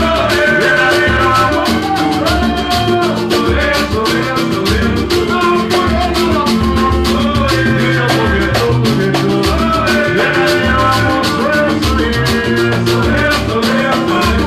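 Band music with dense, fast percussion over a bass line and melodic instruments, keeping a steady beat.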